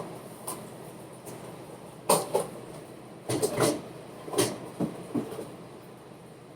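Scattered knocks and clatters of kitchen items being handled and moved around, about half a dozen in all, the loudest bunched near the middle.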